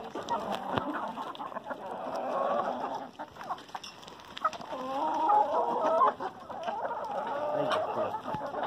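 A flock of chickens clucking, many short overlapping calls with scattered sharp clicks; the calls grow louder about five seconds in.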